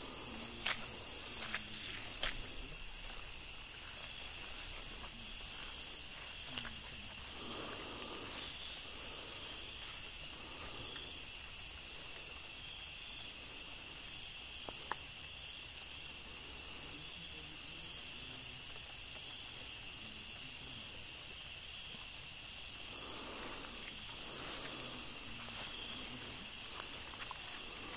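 Steady high-pitched chorus of night insects in a tropical forest, several constant shrill layers droning together. A few faint clicks come in the first couple of seconds, with soft rustles now and then.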